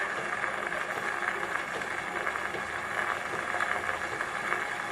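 Steady hiss of an old archival sound recording, with no speech or other events.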